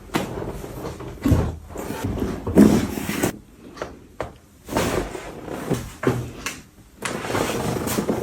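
Irregular knocks and thumps with rustling as a patient's body is shifted and pressed on a chiropractic treatment table during a back adjustment.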